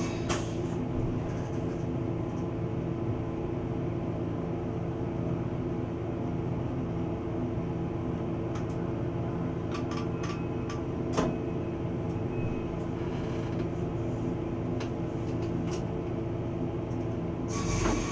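PESA ATR 220 diesel railcar heard from the driver's cab, its diesel engine running with a steady hum. A few sharp clicks and knocks come through, the loudest about eleven seconds in, and the noise grows louder near the end.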